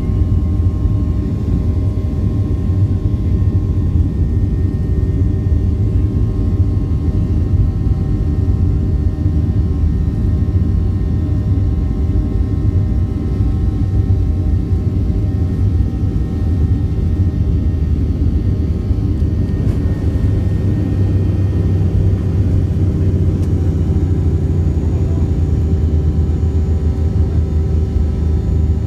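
Boeing 737-700's CFM56-7B jet engines at takeoff power, heard inside the cabin as a loud, steady low rumble with several steady tones over it, through the takeoff roll and liftoff.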